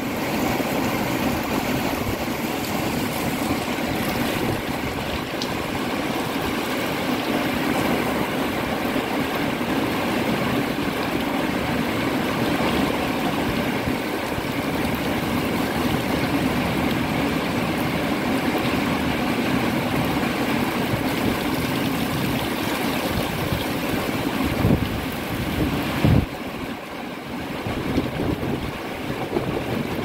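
Heavy rain pouring steadily in strong wind, a dense even hiss. A couple of brief low thumps come near the end.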